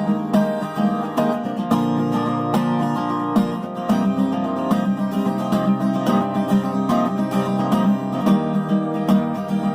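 Acoustic guitar strummed in a steady rhythm, the chords changing every second or two; an instrumental passage with no singing.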